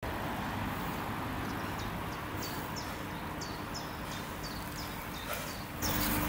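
Steady outdoor background noise with a run of short, high chirps, about two to three a second, beginning about a second and a half in.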